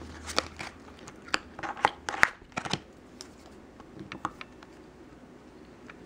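A plastic card scraping nail polish across a metal nail stamping plate: a quick run of sharp scrapes and clicks in the first three seconds, then a few fainter clicks about four seconds in.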